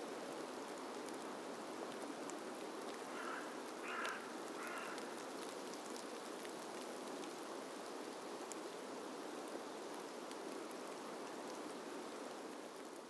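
A steady hiss like rain, with faint scattered ticks. Three short bird-like calls come about three to five seconds in. The hiss fades away at the end.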